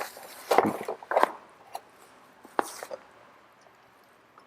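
A few sharp clicks and knocks from handling the charging cable and plug at a mobility scooter's removed battery, the loudest two in the first second or so and lighter ones after.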